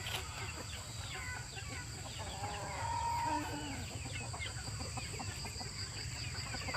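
Gamefowl chickens clucking and calling in many short, scattered notes, with one held call about halfway through.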